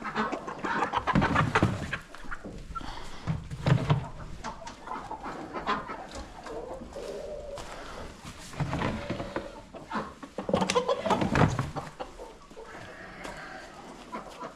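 Chickens clucking and calling on and off as they settle on the roosts, with a few dull thumps of movement or handling.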